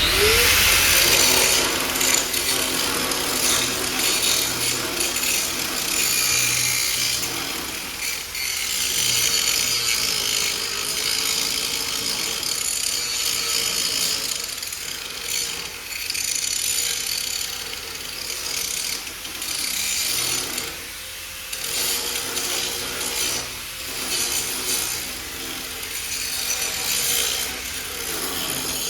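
5-inch angle grinder spinning up, then grinding the torch-cut face of a steel piece flat, with a steady hiss and whine that wavers as the wheel is pressed and eased. The motor winds down just before the end.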